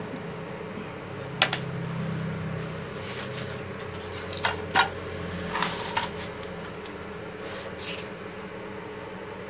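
A few sharp metallic clinks and knocks as metal tools are handled and set down: one about a second and a half in, then several between about four and a half and six seconds.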